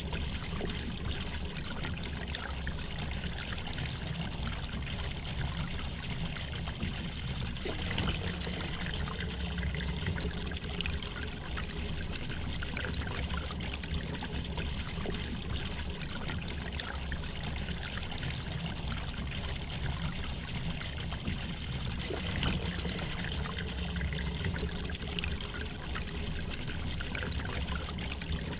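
A river flowing gently, a steady rush of water with small trickles and splashes over it.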